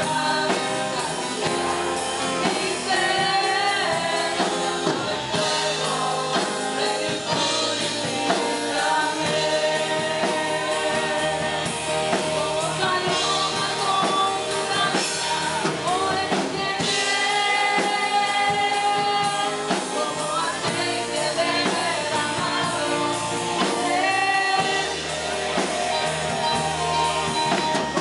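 Live gospel worship song: a woman sings lead through a microphone over an electric-guitar band, with men's voices singing along.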